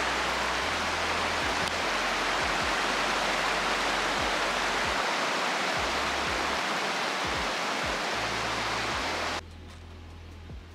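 Steady rushing hiss of running water over soft background music with a slow bass line; the water sound cuts off abruptly near the end, leaving only the music.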